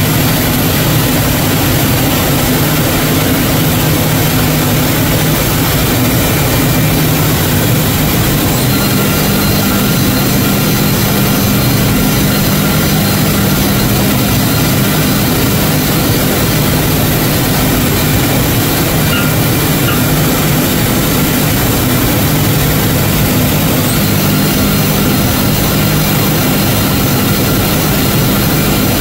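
CNC router spindle and its dust extraction running steadily while a small end mill cuts into a carbon fibre plate: a loud, unchanging machine noise.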